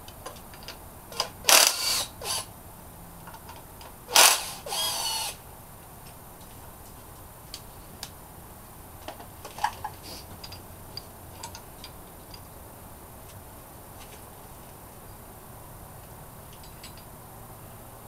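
Power driver whirring in two short runs, about 1.5 and 4 seconds in, unscrewing the loosely fastened rocker arm shaft bolts on an engine's cylinder head. Faint clicks of metal parts being handled follow.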